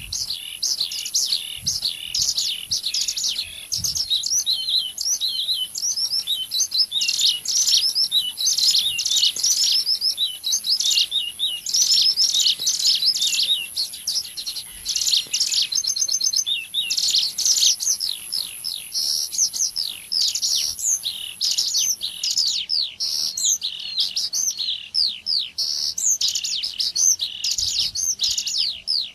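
Ciblek gunung lure calls: a rapid, unbroken chatter of sharp, sweeping chirps from a small songbird, repeated densely as a combined call track meant to draw wild birds in.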